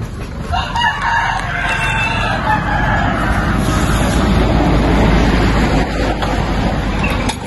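A rooster crowing, one long call in the first few seconds, over a steady rushing noise that is loudest in the middle.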